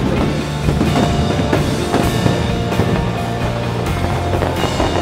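Music playing loudly through a fireworks display, with many aerial shells bursting and crackling at once over it.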